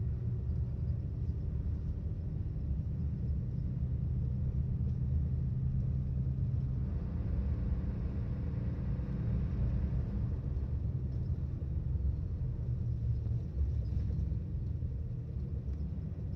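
Volvo 8700 bus's diesel engine running, heard from inside the bus as a steady low rumble that grows louder and fuller for a few seconds around the middle.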